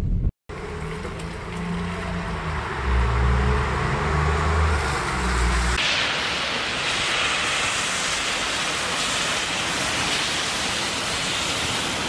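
Low, steady rumble of a car driving on a snowy street, heard from inside the car. About six seconds in it changes to a steady hiss of cars passing on a slushy road in falling snow.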